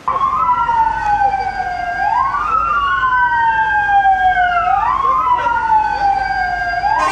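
Fire engine sirens wailing, two tones sliding slowly down in pitch and sweeping quickly back up, out of step with each other so that they cross over and over.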